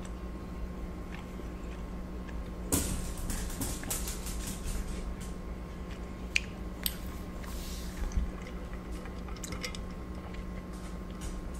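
Close-miked chewing and wet mouth sounds, with a burst of noise about a quarter of the way in and scattered sharp clicks and smacks until near the end, over a steady low hum.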